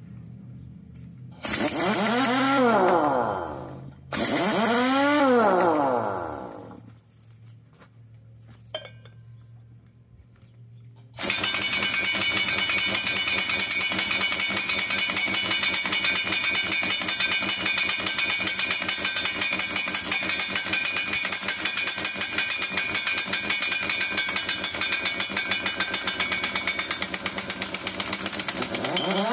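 Harbor Freight 1-inch pneumatic impact wrench: two short free spins early on, each rising in pitch then falling away, then about 11 s in it starts hammering steadily on the dozer's large rear sprocket nut, working to break the stuck nut loose.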